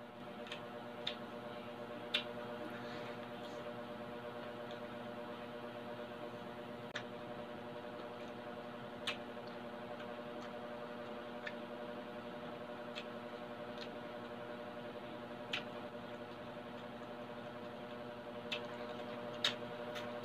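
Close-up chewing of crispy fried pork belly: scattered sharp crunches and mouth clicks a second or more apart, over a steady droning hum of several tones.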